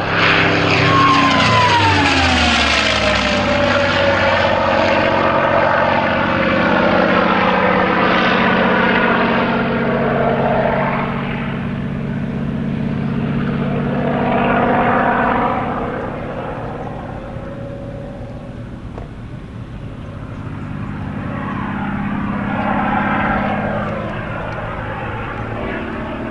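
P-51D Mustang's Packard Merlin V-12 engine on a fast low pass: it comes in loud and its pitch drops sharply as it goes by, then the engine runs on steadily, swelling and fading several times as the aircraft flies its display.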